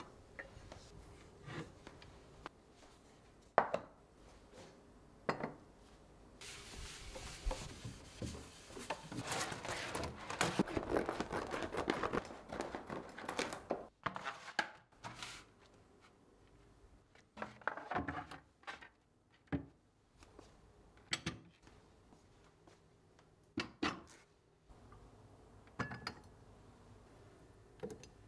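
Ceramic plates and bowls clinking and knocking as they are lifted from and set down on wooden cabinet shelves. In the middle a long stretch of rustling comes as a shelf liner mat is unrolled and smoothed onto the shelf, then single clinks follow as the dishes go back one by one.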